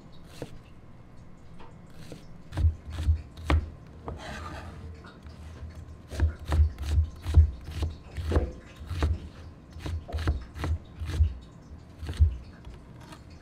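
Kitchen knife slicing vegetables on a cutting board: a run of knocks as the blade hits the board, about two a second, with a pause after the first few cuts and a brief scrape in between.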